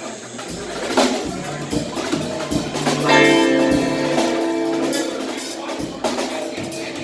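Guitar strummed, with one chord held ringing for about two seconds near the middle, and a few scattered drum hits.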